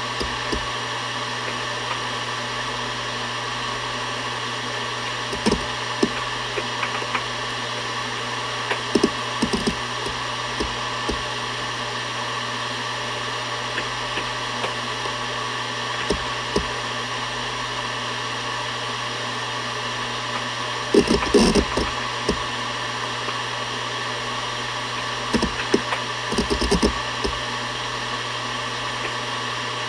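Seagate Barracuda ES.2 ST31000340NS hard drive running at 7200 rpm, a steady hum and whine from its spinning platters. Over it come the heads' seek ticks: scattered single clicks, with busier bursts of seek chatter about 21 seconds in and again around 25 to 27 seconds.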